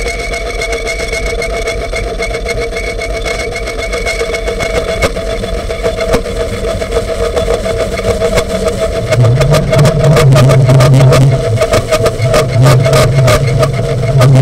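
Amplified homemade noise instrument playing a steady droning hum with crackling clicks that grow denser. About nine seconds in, a loud low buzz comes in, drops out briefly and returns.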